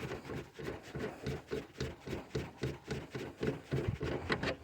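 Steady run of light metallic clicks, about five a second, as the taillight assembly's nuts are worked off their long mounting studs.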